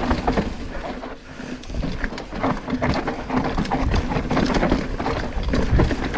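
Mountain bike rolling fast down a dry dirt trail: constant rattling and clattering from the bike, with many short knocks as it goes over roots and bumps, and a low rumble of the tyres on the dirt.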